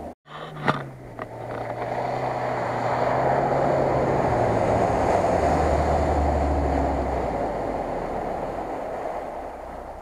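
A Lada Niva SUV drives fast through shallow water: its engine runs under load beneath a steady rush of splashing spray. The sound swells as the car passes and fades as it moves away. A sharp knock comes just under a second in.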